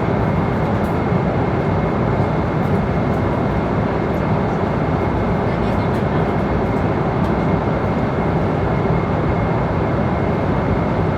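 Airliner cabin noise in flight: a steady, even rush of airflow and engine drone, deep and unchanging, with a faint steady high whine above it.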